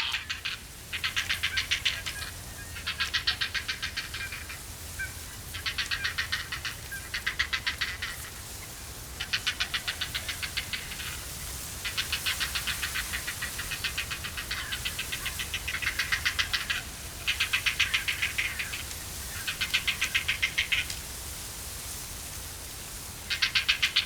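Grey heron chicks begging at the nest: bursts of rapid, rattling ticks, each lasting about a second, repeated again and again with short gaps, the sign of hungry nestlings asking the parent for more food.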